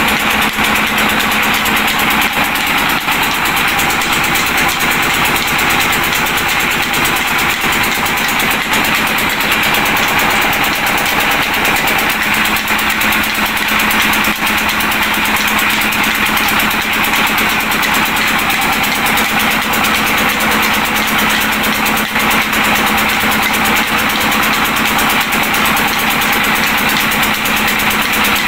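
Flour mill running steadily while grain feeds in from its hopper and is ground: a loud, even mechanical drone with a constant low hum.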